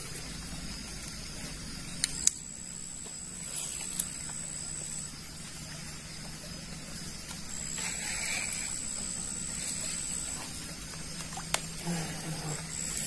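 Night insects trilling in a high, steady tone that comes and goes in stretches of a few seconds, over a low steady hum, with a few faint clicks.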